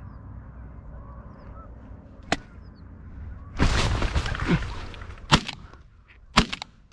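Shotgun shots fired at flying ducks: a sharp crack about two seconds in, a loud shot past five seconds and a quick pair near the end, with a second-long rush of noise in between.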